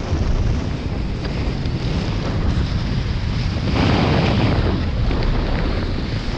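Rushing air blasting the camera's microphone during a parachute descent, a steady loud wind roar with a stronger surge about four seconds in.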